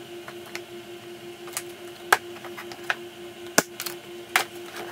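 Plywood pieces handled and knocked together on a workbench: irregular sharp clicks and knocks, a few of them louder, over a steady hum.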